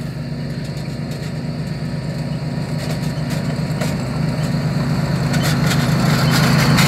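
Two riding lawn mowers, a John Deere and a Toro with a Kawasaki engine, running flat out, their engine hum growing steadily louder as they approach.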